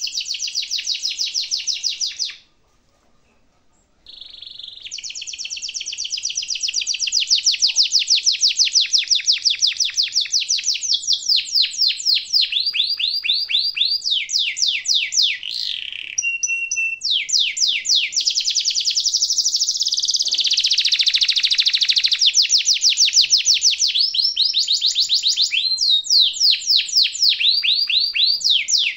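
Domestic canary singing long, high-pitched rolling trills of fast repeated notes that change in pace and pitch, with a short break about two and a half seconds in.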